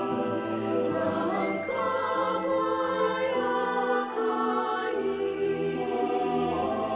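A choir singing held chords, the notes shifting every second or so.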